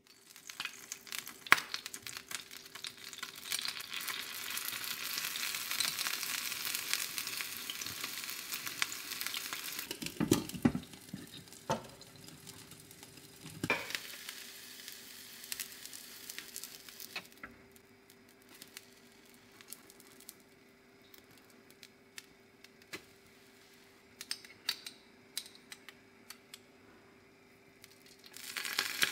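Japanese soufflé pancakes frying in a hot nonstick pan: a steady sizzle, with two dull knocks around 10 and 14 seconds in. After about 17 seconds the sizzle drops to faint scattered crackling.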